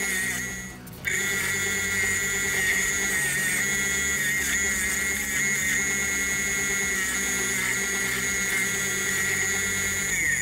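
Practyl bench grinder whining steadily as a metal part is ground against its wheel, breaking off briefly about a second in, over background music.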